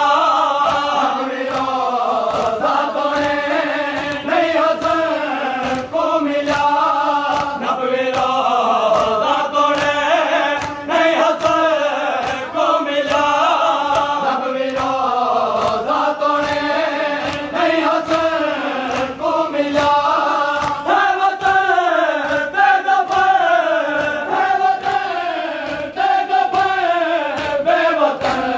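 A crowd of men chanting a noha (Shia lament) together, with the sharp slaps of hands beating on bare chests (matam) recurring in a steady rhythm.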